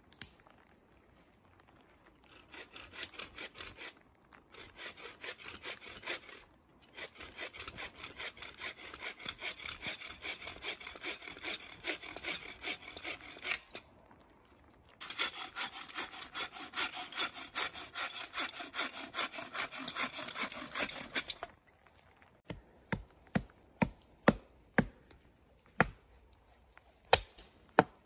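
Collapsible bucksaw cutting through a dead branch with quick, even back-and-forth strokes, in two long bouts with brief pauses between them; the second bout is louder. Near the end come a string of sharp single knocks: a hatchet chopping wood.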